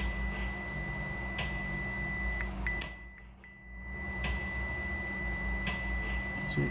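Multimeter continuity beeper sounding a steady high tone while the probes touch points on an amplifier circuit board. The tone breaks off for about a second around three seconds in, then sounds again. It marks a low-resistance path between the probed points, as he tracks down a short.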